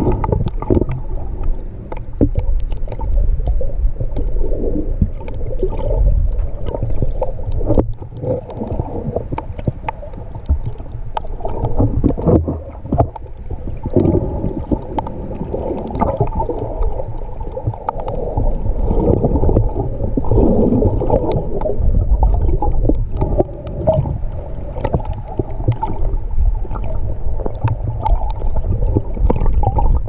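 Muffled underwater sound picked up by a GoPro held under the water: a continuous low rumble and sloshing of moving water, with scattered small clicks and knocks.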